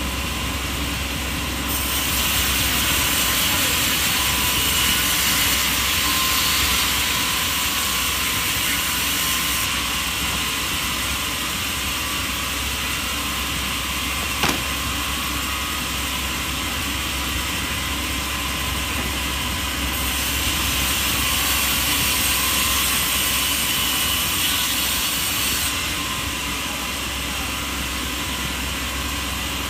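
Steady noise of woodworking machinery running, changing abruptly in character a few times, with one sharp click about halfway through.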